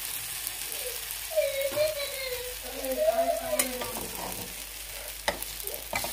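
A ghavan, a thin flour-batter crepe, sizzling steadily in oil on a non-stick pan. A few sharp clicks in the second half come from a steel spatula loosening the crepe's edges, with a faint wavering tone around the middle.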